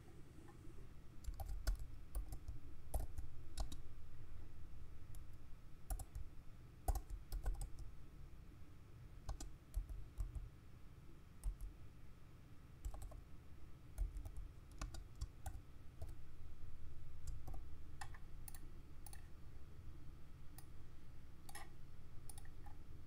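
Computer keyboard typing: irregular runs of key clicks with short pauses between them.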